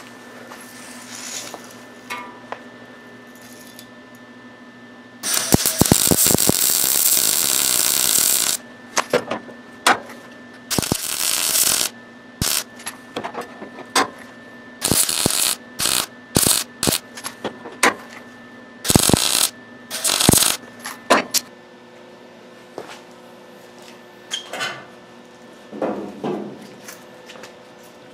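MIG welder arcing on body sheet steel: one burst of about three seconds, then a string of short tack-weld bursts, each a second or less, which stop about two-thirds of the way through.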